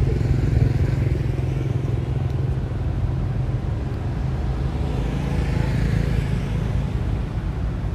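Road traffic: a steady engine rumble from vehicles on the road, with one vehicle passing by about five or six seconds in.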